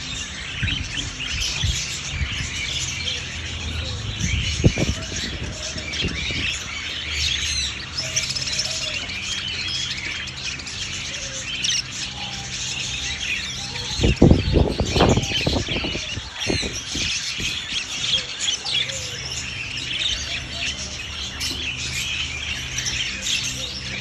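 Budgerigars chirping and chattering constantly, many calls overlapping, with a few low knocks about five seconds in and a cluster of them around the middle.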